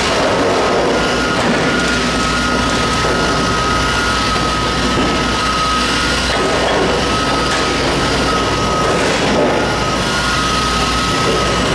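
Liebherr R9200 mining excavator running and travelling slowly on its crawler tracks, a loud, steady, dense machine noise. A thin high beeping tone sounds on and off over it.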